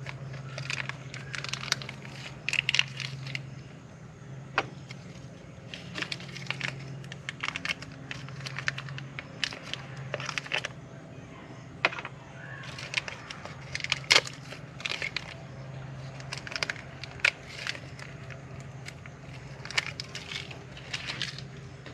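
Crinkling and crackling of a small clear plastic parts bag being handled and unwrapped, in irregular sharp bursts, over a steady low hum.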